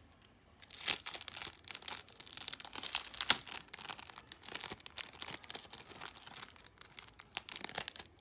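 Thin clear plastic packet crinkling and rustling as it is handled and opened, in a dense run of irregular crackles starting about a second in.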